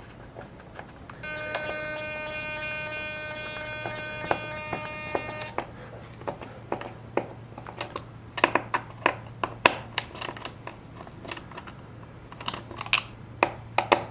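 Small Torx screwdriver turning and clicking against the screws and metal mount of a servo frame, in a string of sharp ticks and taps that grow louder and busier in the second half. About a second in, a steady buzzing tone of several pitches runs for about four seconds, then stops abruptly.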